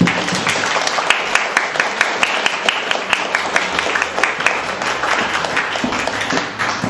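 Audience applauding: many hands clapping in a dense, even patter that stops near the end.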